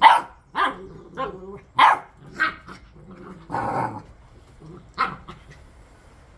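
Bernese Mountain Dog puppy barking, about seven short barks over the first five seconds, one of them longer, then stopping.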